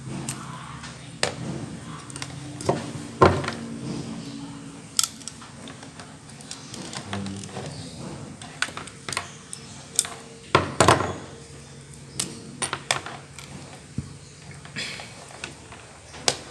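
Irregular clicks, snips and handling noises as the outer jacket of a Cat 5e UTP network cable is cut and stripped off by hand, with the sharpest clicks about 3 seconds and 11 seconds in.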